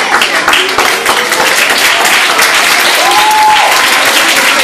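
An audience applauding with dense, steady clapping, and a brief high held note about three seconds in.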